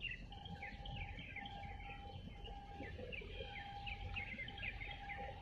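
Small birds chirping in a quick, overlapping chatter, over a low rumble, with a faint tone beeping about once a second beneath them.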